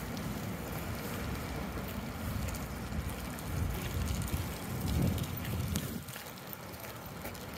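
Wind buffeting a phone's microphone, an uneven low rumble that eases a little about six seconds in.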